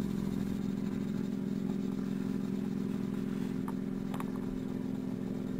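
Steady low machine hum of several even tones, with a couple of faint clicks about halfway through.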